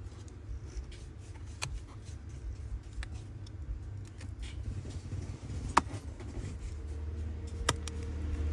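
Thin metal screen-opening pick scraping and tapping along the edge of an iPhone 13's cracked display, with small scratches and clicks and two sharper clicks in the second half, over a steady low hum.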